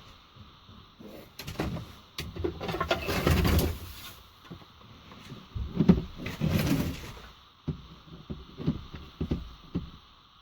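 A sheet of self-adhesive sound-deadening mat being worked by hand: two scraping, rustling strokes, consistent with cutting it in half, followed by several short knocks and clicks.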